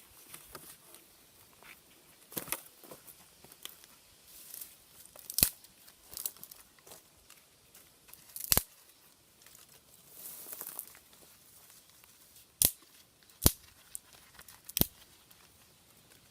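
Soft rustling and crinkling of handling noise, with five sharp clicks or snaps spread through, the loudest near the middle and end.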